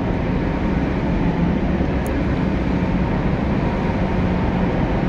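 LG ABUQ48GM3T1 air conditioner running: a steady rush of air with a low hum, and one short click about two seconds in.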